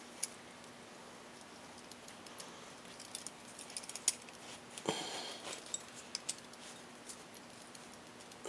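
A steel piston ring being spread and worked by hand into its groove on an MGB piston: scattered light metallic clicks and ticks, with a short scrape about five seconds in, over a faint steady hum.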